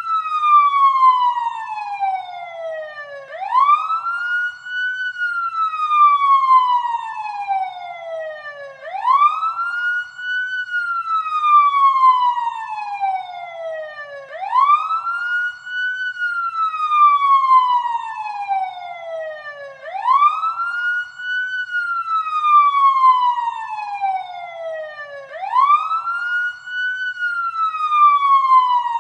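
Wailing siren sound effect from the Voice Changer Plus app. Each wail sweeps up quickly, then glides slowly down, repeating about every five and a half seconds, about five times.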